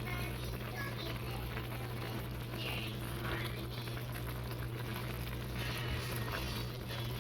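Squid adobo simmering and bubbling in a pan, a steady bubbling hiss over a constant low hum.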